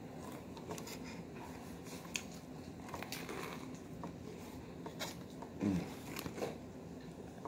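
A person biting into and chewing a soft chicken sandwich: faint, soft mouth clicks and smacks, with a brief low hum from the eater about two-thirds of the way through.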